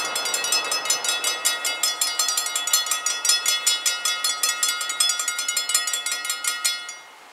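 Level-crossing mechanical bells ringing in rapid, even strokes as the barriers rise. The bells cut off abruptly about seven seconds in.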